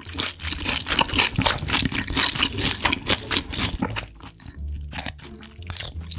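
Close-miked wet chewing and slurping of spicy sauce-coated seafood, a dense run of sharp smacking clicks for about four seconds, then thinning out near the end.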